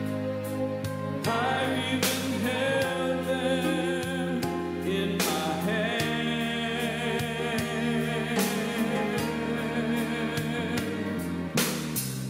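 A solo male voice singing a gospel song with vibrato over instrumental accompaniment.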